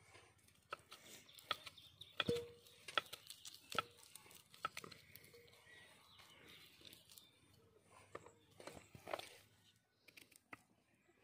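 Boiled potatoes being squeezed and crumbled by hand into an aluminium bowl: faint, irregular squishing and crackling with scattered small clicks.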